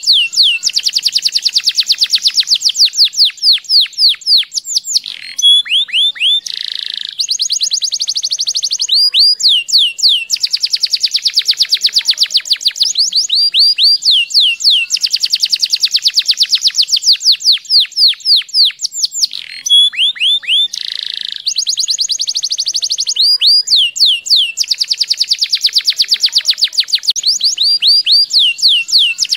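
Domestic canary singing long rolling trills: fast runs of rapidly repeated, falling high notes in phrases of a few seconds with short breaks. The same sequence of phrases comes round again about halfway through.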